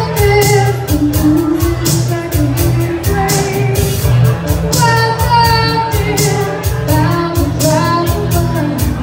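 Live band playing, with a woman singing the lead melody over drums and bass at a steady beat.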